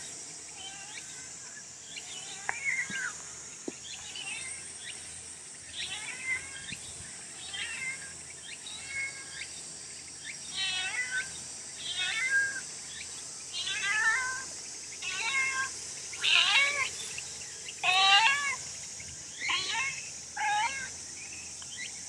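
A cat meowing over and over, about one call a second, the meows growing louder in the second half.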